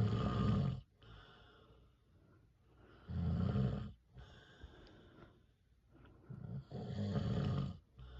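A man snoring in his sleep: three loud snores about three seconds apart, the first already under way at the start, with quieter breathing between them.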